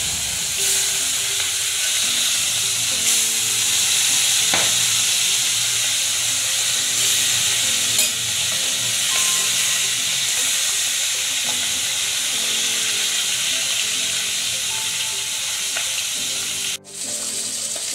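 Pieces of phali (bronze featherback) fish sizzling steadily as they fry in hot oil in a metal kadai. A spatula turning the pieces gives a few brief scrapes and clicks. Near the end the sound drops out for a moment.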